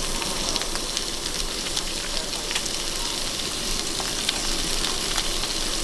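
Food sizzling in a hot oiled pan: a steady frying hiss with scattered small pops.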